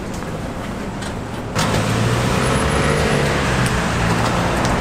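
Street traffic: a motor vehicle's engine running close by with road noise, a steady low hum that turns suddenly louder and fuller about a second and a half in.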